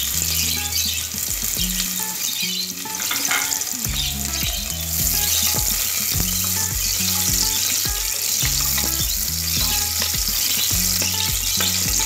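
Sliced onions sizzling steadily as they fry in hot oil in a pressure cooker, stirred now and then with a wooden spatula.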